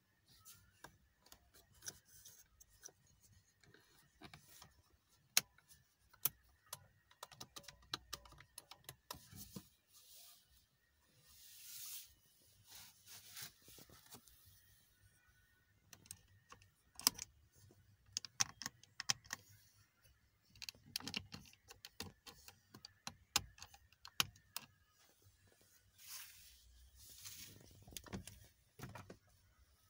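Faint handling noise: scattered sharp clicks and taps with a few brief rustles, from a hand holding and moving a phone.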